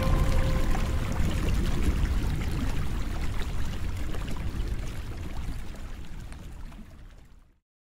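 Running water flowing and splashing, fading out steadily and cutting off to silence near the end.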